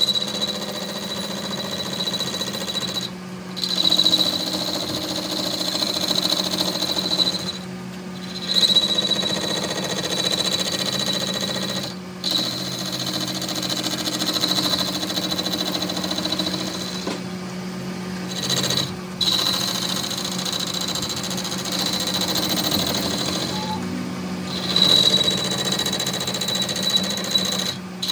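Workshop machine running with a steady high whine over a low hum, cut off briefly several times.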